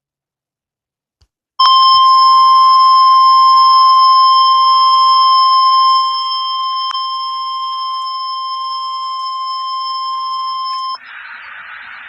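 NOAA Weather Radio 1050 Hz warning alarm tone: one steady, high, piercing tone that starts about a second and a half in, lasts about nine seconds, and cuts off suddenly, leaving faint radio hiss. It is the signal that an emergency weather alert message follows.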